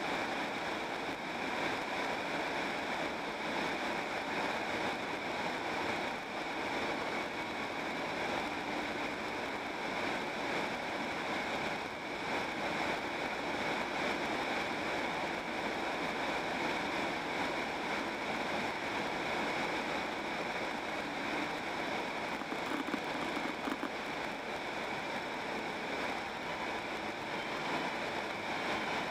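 Steady road noise of a car driving at highway speed: tyres on asphalt with a wind rush.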